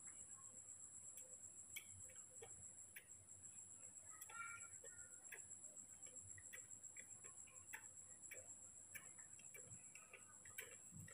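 Near silence: faint, irregular soft clicks of a baby monkey sucking milk from a bottle teat, over a steady faint high-pitched buzz.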